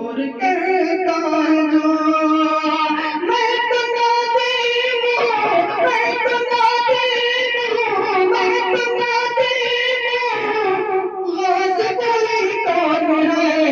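A man singing a ghazal in long, held notes with a wavering pitch, with a short break about eleven seconds in.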